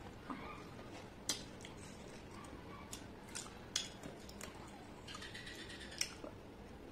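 Eating sounds of rice and fish curry eaten by hand from a steel plate: fingers working wet rice against the plate and chewing, with a few sharp, wet clicks spread through.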